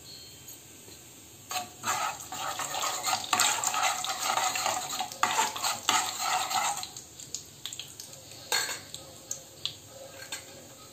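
Steel spoon stirring and scraping cumin and mustard seeds around a metal kadai in hot oil, the tempering for pulihora. Dense scraping and clicking starts about a second and a half in and lasts about five seconds, followed by a shorter burst of scraping and a few taps near the end.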